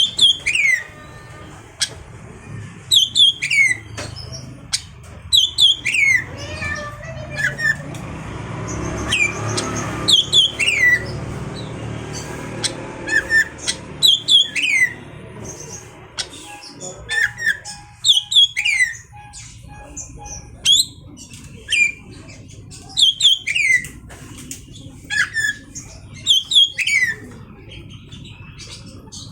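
Oriental magpie-robin (kacer) calling: sharp notes sliding downward, in groups of two or three that repeat every few seconds. Scattered clicks come between the calls.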